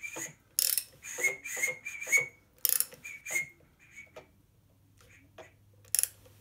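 A top dead center whistle in the spark plug hole of a Harley-Davidson V-twin gives short whistling chirps as the engine is turned over by hand with a ratchet wrench, along with the wrench's clicks. The whistle sounds as the rising piston pushes air out on the compression stroke, and it goes quiet as the piston nears the top. The chirps die away after about four seconds, and one sharp click comes near the end.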